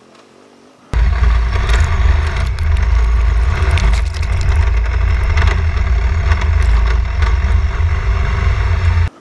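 Motorcycle on the move, heard as a loud, heavy low rumble with wind noise on the microphone. It starts abruptly about a second in and cuts off suddenly near the end.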